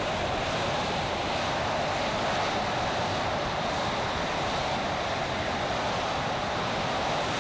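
Steady roar of a fighter jet's engines on an aircraft carrier flight deck, held at power before a catapult launch.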